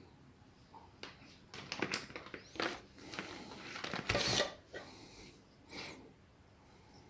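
Clicks and short scrapes of small metal parts being handled as the return spring is hooked onto the decompression mechanism of a Honda GX100 engine's camshaft, with a louder knock about four seconds in.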